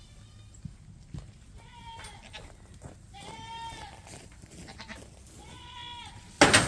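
Nubian goats bleating, several drawn-out calls a second or two apart. Near the end comes a sudden loud knock.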